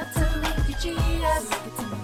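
Intro music: a pop song with a singing voice over a steady bass beat.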